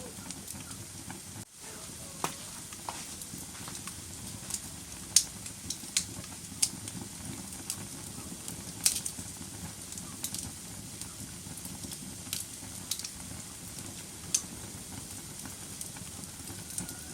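Wood fire burning in a fireplace: a steady low rush of flames with irregular sharp crackles and pops, a few of them loud. The sound drops out for an instant about a second and a half in.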